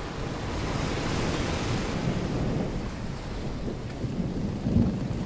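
Storm-at-sea ambience: waves surging with wind over a steady low rumble. A wash of surf swells about a second in, and a louder low thud comes near the end.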